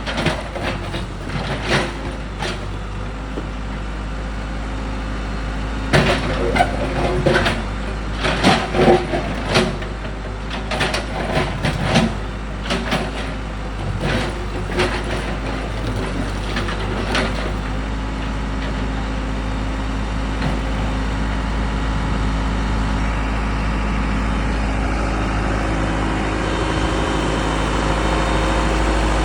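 Case 580 backhoe loader's diesel engine running under load, with a run of irregular clanks and knocks of the bucket working broken concrete through the first half or more. After that the engine runs on steadily, growing a little louder near the end.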